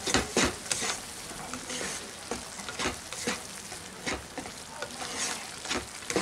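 Water-spinach paste frying in mustard oil in a nonstick kadai with a steady sizzle, while a spatula stirs and scrapes it in irregular strokes about two a second, busiest in the first second. The paste is being cooked down on low heat until it dries.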